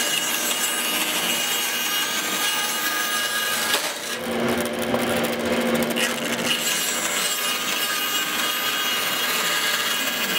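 Bandsaw running and cutting through a round wooden dowel: a steady hum from the saw under continuous sawing noise. The sawing eases briefly about four seconds in.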